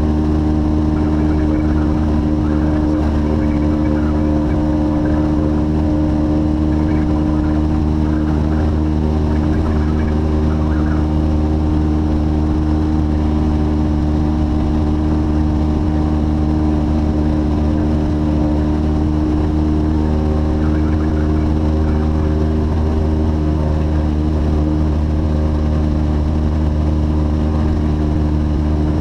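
Light aircraft's piston engine and propeller droning steadily at constant power in level flight.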